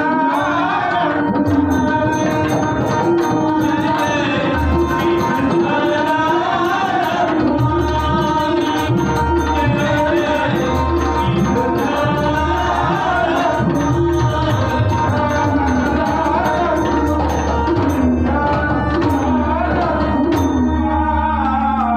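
A male voice singing a devotional bhajan in a powerful voice, with harmonium holding sustained notes and pakhavaj and tabla drumming a steady accompaniment.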